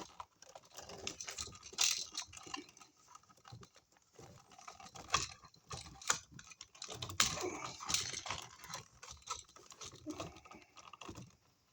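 Insulated electrical wires with wire nuts being bent and folded back into an electrical box: irregular clicks, taps and scraping as the stiff wires and nuts knock and rub against the box and each other.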